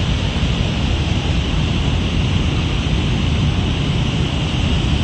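Steady, loud rush of a flooded mountain stream in spate after a cloudburst, with a deep rumble of churning water.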